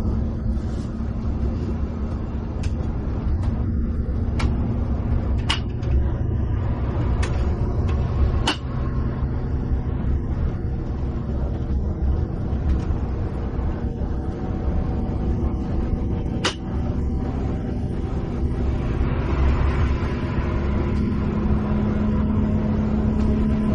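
Coach bus running on the highway, heard from inside the cabin: a steady low engine and road rumble with a few scattered sharp clicks. Near the end a louder hiss of tyre and road noise joins in.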